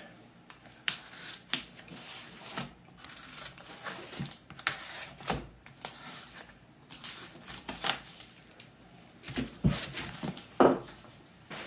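Mail packaging being handled on a table: irregular rustling, crinkling and scraping of cardboard and a plastic shipping mailer, with a couple of louder knocks near the end as the mailer is set down.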